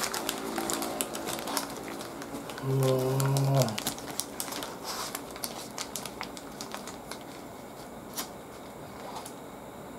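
Paper burger wrapper crinkling and crisp lettuce leaves rustling as a lettuce-wrapped burger is handled and lifted, in a run of small sharp crackles. A short vocal sound comes about three seconds in.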